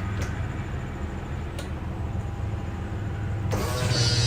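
A steady low hum with a couple of faint clicks, then about three and a half seconds in the electric slide-out motor of a Forest River FR3 32DS motorhome starts running with a steady whir as the slide room retracts.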